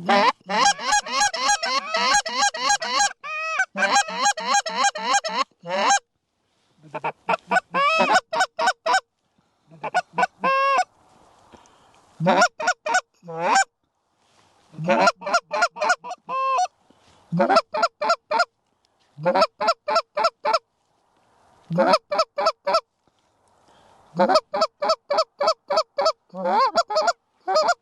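Canada goose calls blown in fast runs of short honks and clucks, about nine bursts with brief pauses between them, to work an approaching flock of geese in to the decoys.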